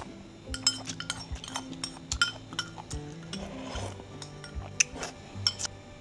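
Eating utensils clinking against bowls and dishes, an irregular run of sharp clinks that stops shortly before the end, over soft background music.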